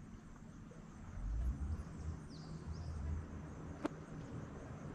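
Quiet outdoor ambience: a low rumble from about a second in, a faint high chirp near the middle, and a single sharp click near four seconds.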